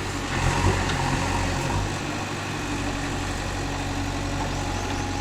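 Heavy diesel engine running steadily at low revs, a constant hum with no change in pitch.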